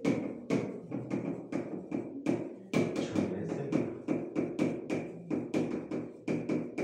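Chalk writing on a blackboard: a quick, irregular run of sharp taps and knocks, about three a second, as the chalk strikes the board.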